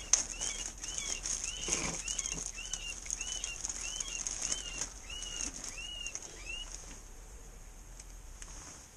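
A series of short, arched, high-pitched chirping calls repeating about twice a second, stopping about two-thirds of the way through.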